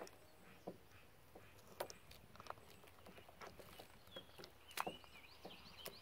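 Faint clicks and snips of aviation snips biting through rubber bungee cord, several scattered strokes.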